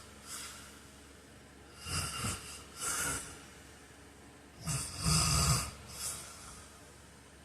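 A sleeping man snoring: two snoring breaths about two and five seconds in, each followed by a shorter, softer breath sound about a second later, the second snore the loudest.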